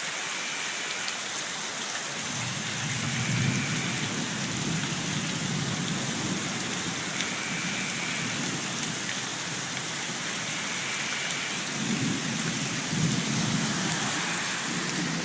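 Heavy rain pouring steadily, with low thunder rumbling twice: once from about two seconds in, and again near the end.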